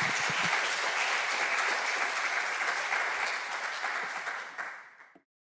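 Audience applauding; the clapping dies down near the end and the sound cuts off abruptly.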